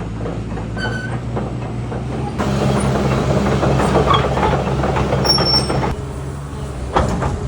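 Heavy machinery engine running with a steady low hum, getting louder and clattering from about two and a half seconds until about six seconds in. A single knock comes near the end, and there are a couple of brief high squeaks.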